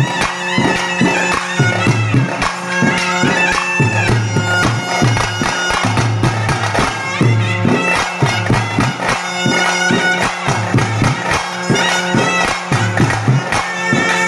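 Nagaswaram playing an ornamented melody full of sliding notes over a steady drone. A double-headed barrel drum, beaten with a stick, and a hand drum keep a steady rhythm of strokes beneath it.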